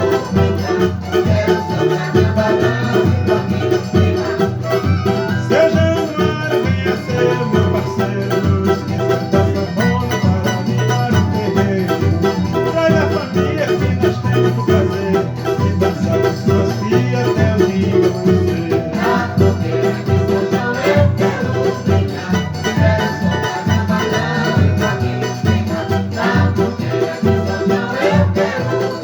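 Instrumental music: a steady plucked-string melody played on a handmade instrument with a Swedish pine top and an imbuia body, in a São João forró tune.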